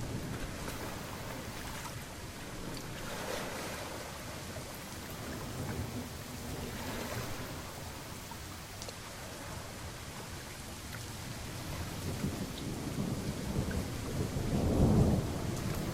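Steady rainfall with low, rolling thunder, swelling into a louder thunder rumble near the end.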